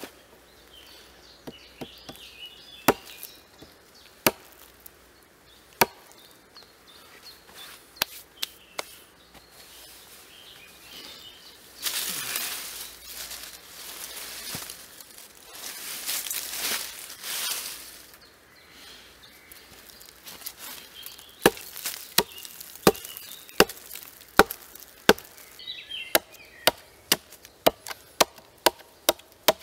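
Hatchet chopping into a wooden log: scattered single strikes at first, a stretch of rustling noise in the middle, then a steady run of chopping, about two blows a second, over the last third.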